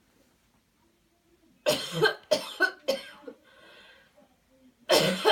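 A person coughing hard on purpose as part of a guided cough-clearing routine: three sharp coughs in quick succession about two seconds in, a breath drawn in, then another cough starting near the end.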